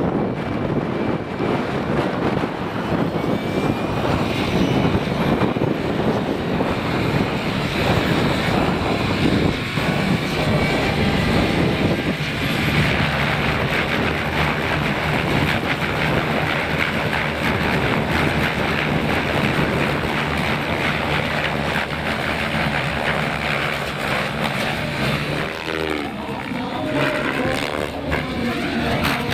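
Electric radio-controlled helicopters in flight: rotor blades whooshing over the whine of their electric motors, the pitch sliding up and down as they manoeuvre. From about halfway the sound settles into a steadier drone.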